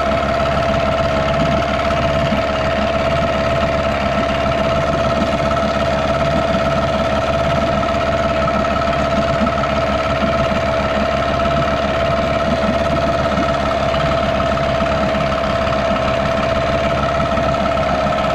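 Yamaha 6hp two-stroke outboard motor running steadily with its leg in a test drum, at one even pitch. The cooling tell-tale has just been cleared of gravel that was blocking it, so cooling water is flowing again.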